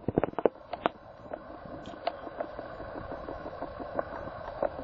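A quick run of light clicks and knocks in the first second, from a digital multimeter and its test leads being handled on top of the batteries. After that comes a steady background hiss with a few faint scattered ticks.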